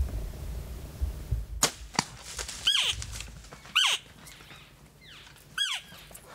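Compound bow shot: a sharp snap of the release and a second crack a split second later, then three high, squealing calls that slide down in pitch, in the manner of elk mews.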